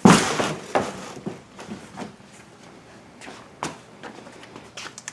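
Footsteps and handling noise: a loud rustling knock right at the start, then scattered light clicks and taps.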